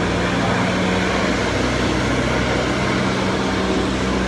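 A vehicle engine running steadily over a constant rushing noise.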